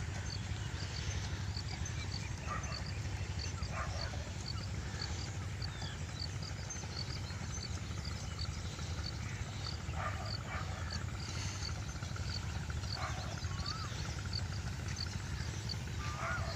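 Open-field ambience: a steady low rumble under short high chirps repeating about two or three times a second, with a few other bird-like calls scattered through.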